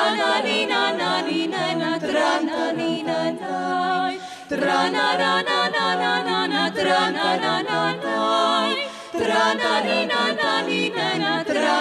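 Female klapa ensemble singing a cappella in close multi-part harmony, with short breath breaks between phrases about four and nine seconds in.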